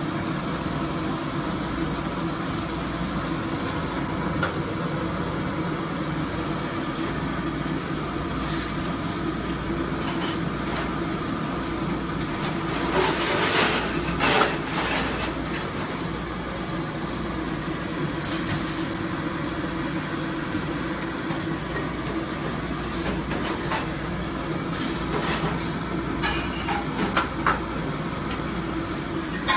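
Steady rumbling roar of a commercial kitchen's gas range, its burners running under pots of meat on the boil. A few short clatters come about halfway through and again near the end.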